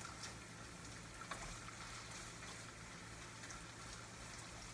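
Pork belly and beans sizzling faintly and steadily in a frying pan, over a low steady hum.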